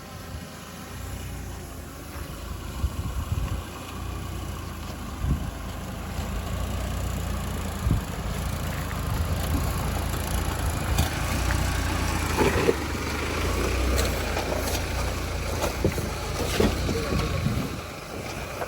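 Mahindra Thar driving off-road: a steady low engine rumble with scattered knocks and rattles, getting louder over the first half and busiest in the second half.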